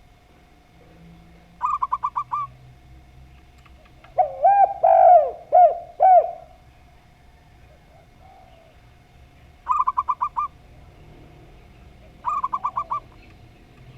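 Two kinds of dove cooing in turn. Three times there is a quick run of about six short, higher coos, the zebra dove's (perkutut) call. About four seconds in comes a louder run of about five lower, arching coos, the spotted dove's (derkuku/tekukur) call.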